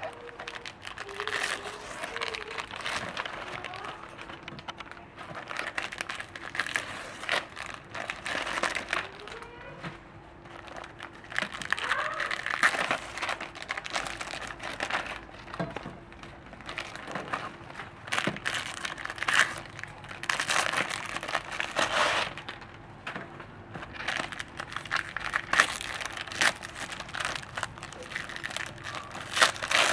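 Clear plastic cookie wrappers crinkling and crackling in bursts as gloved hands tear them open and pull out long wafer-roll cookies, one after another.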